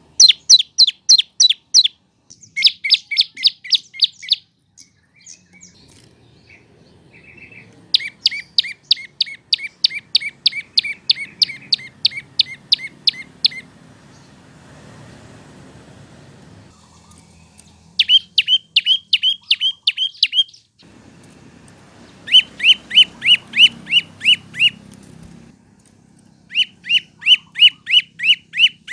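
Olive-backed tailorbird (prenjak lumut) singing: loud phrases of rapid, sharp, down-slurred notes, about six a second, repeated in bursts of two to six seconds with short pauses between. The later phrases are pitched lower.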